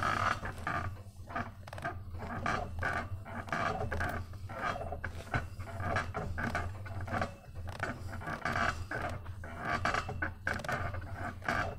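Heavy rhythmic breathing, about one breath a second, from an athlete straining through wrist reps on a cable pulley, over a steady low hum.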